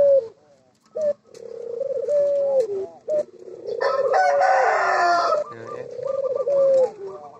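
A rooster crowing: repeated long, wavering calls, with the loudest and fullest crow about four seconds in.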